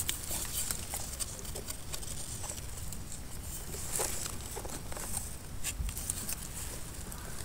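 Soft rustling, scraping and light clicks of hands and a knife working in damp leaf litter and soil as a mushroom is dug up and the dirt trimmed from its base, over a steady high hiss.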